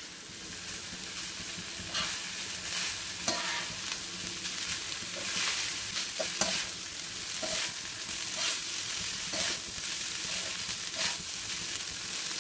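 Mushroom fried rice stir-fried in a hot wok: a steady sizzle as a steel spatula tosses and mixes the rice, with frequent short scrapes and taps of the spatula against the pan.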